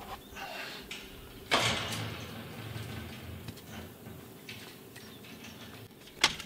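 Work-handling noises: a sharp clattering knock about a second and a half in that rings off over about a second, faint rustles and ticks, and a short sharp click near the end.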